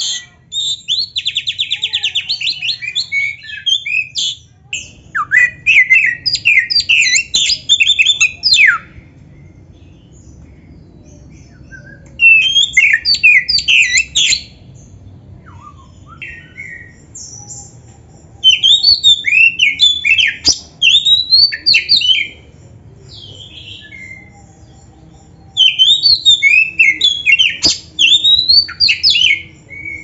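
Oriental magpie-robin singing in rapid bouts of varied, sweeping whistled notes, with a fast trill near the start. There are five bouts, separated by pauses of a few seconds.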